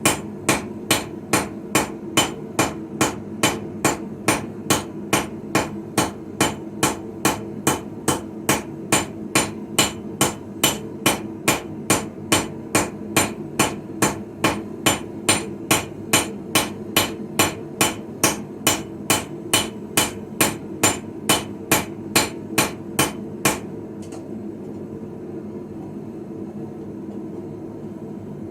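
Hand hammer striking steel on an anvil in a steady rhythm of about two blows a second while forging a blade, then stopping about 23 seconds in. A steady low hum runs underneath throughout.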